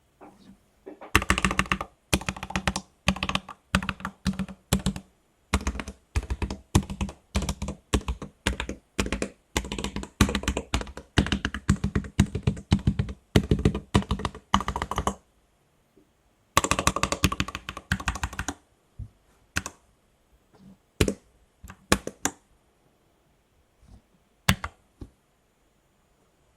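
Typing on a PolyKybd mechanical keyboard with Outemu Red Panda switches: rapid bursts of key clacks, with a pause about 16 seconds in. After about 19 seconds only a few single keystrokes come, sparse and separate.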